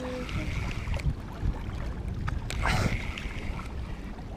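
Small waves lapping at the water's edge, with wind buffeting the microphone and one brief louder noise a little past the middle.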